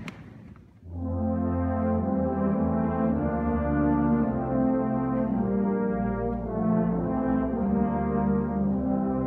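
Middle school concert band playing held chords with brass prominent, coming in about a second in after a short click.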